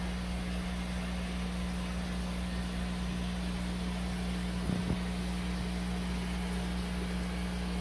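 Aquarium air pump humming steadily, with an even hiss of air, running the tank's sponge filter; a soft low bump just under five seconds in.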